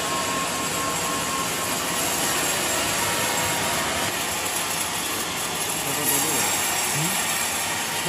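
A large vertical band sawmill running and sawing through a trembesi hardwood log, a steady, even rushing noise.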